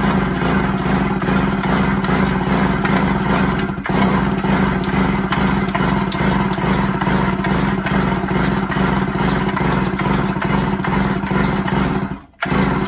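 Stihl MS 382 chainsaw being pulled over and over on its recoil starter with the spark plug out, so the engine turns without firing and blows the flooded cylinder clear of fuel. The pulls come fast and steady, with a brief break about four seconds in, and stop just before the end after one last short burst.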